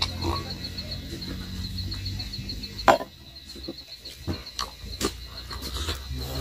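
A cricket's high, fast-pulsing chirp keeps on throughout, over a low hum that fades about two seconds in. A few sharp clicks and knocks cut across it, the loudest about three seconds in.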